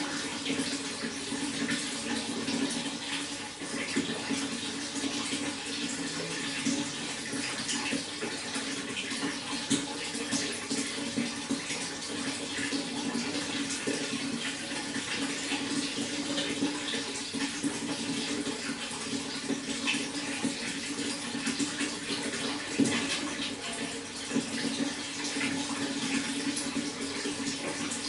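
Running water flowing steadily and evenly, with no pause.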